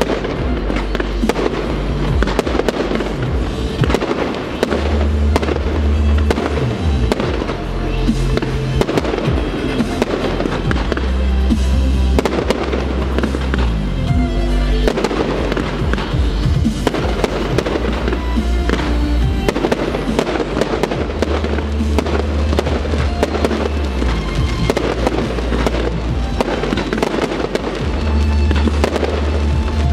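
A fireworks display: shells bursting and crackling in quick succession, over loud music with a deep, sustained bass line.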